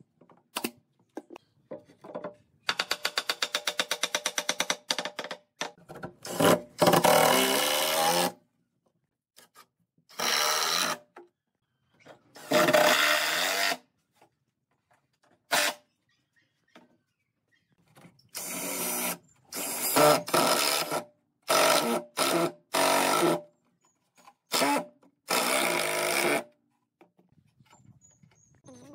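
Power tools working wood in short spells: a few sharp clicks, then a run of rapid, even clicks, then many loud one-to-two-second bursts of a tool running, each starting and stopping abruptly.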